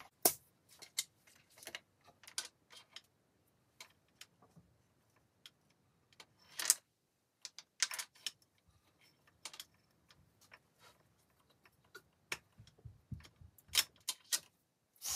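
Scattered light clicks and taps of a compression tester's metal fittings and rubber hose being handled and unscrewed at a motorcycle's spark plug well, with a few louder knocks about seven, eight and fourteen seconds in.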